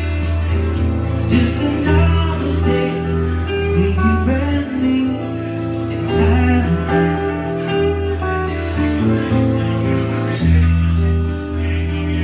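Live acoustic and electric guitars playing together, strummed chords over sustained notes.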